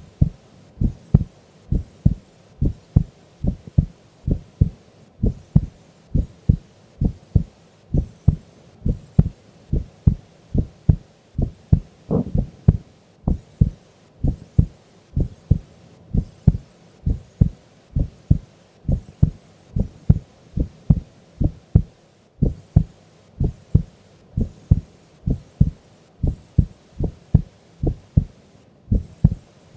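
A sleeping woman's heart beating at rest, recorded close against the chest: an even rhythm of about one beat a second, each beat a paired lub-dub thump.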